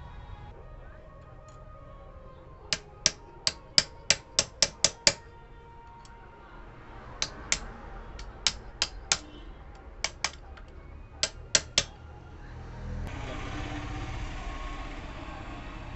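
Sharp metal clicks in quick runs, from a ratchet wrench tightening the camshaft sprocket bolts on a TVS Ntorq 125 cylinder head: first a run of about nine at three to four a second, then several groups of two or three. A steady hiss comes in near the end.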